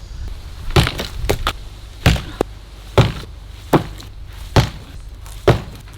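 A 3.6 kg sledgehammer striking the bricks of a brick letterbox in a quick series of about seven heavy blows, just under a second apart, with a few lighter knocks in between.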